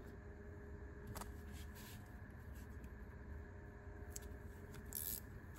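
Faint handling of a small metal key-ring multi-tool and quarter-inch screwdriver bits: a few light clicks, one about a second in and a couple near the end, over a low steady hum.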